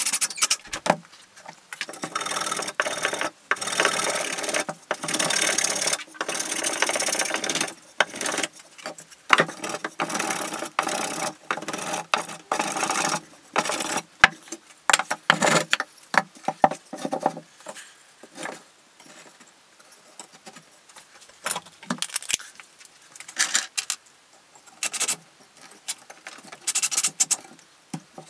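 Cordless drill driving screws into pine framing boards in a series of runs of a few seconds each through the first half. After that come scattered knocks, clicks and short bursts of wood being handled and shifted.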